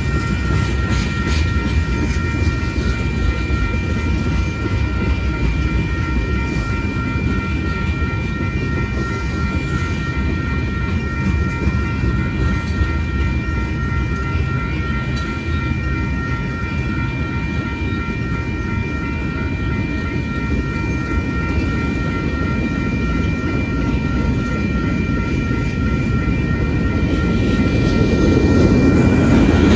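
Freight train's tank cars and boxcars rolling past a grade crossing: a steady rumble of steel wheels on rail, growing louder near the end. Over it the crossing's warning bell rings steadily on a few high tones.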